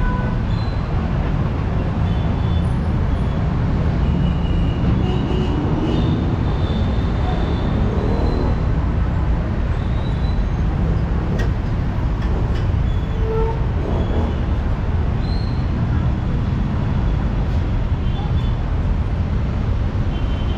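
Steady traffic noise from a busy city boulevard: a continuous low rumble of passing vehicles, with faint scattered high tones over it.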